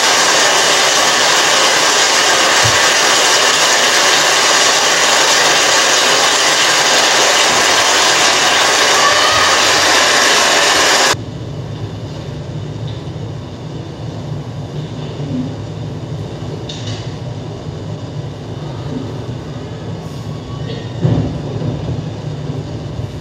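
Loud, steady hiss-like noise that cuts off suddenly about eleven seconds in, leaving a quieter low rumble with a few faint knocks.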